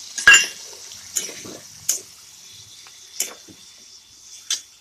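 A metal spatula knocking and scraping against a frying pan as potato cubes are stirred in a little liquid. There are about five sharp clacks, the loudest near the start, over a steady sizzle from the pan.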